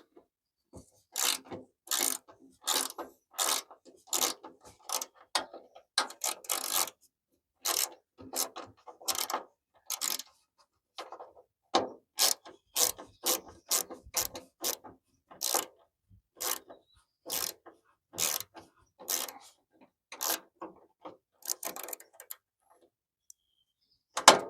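Hand ratchet wrench being worked back and forth, a long series of short clicking rasps, a little more than one a second, with brief pauses between runs.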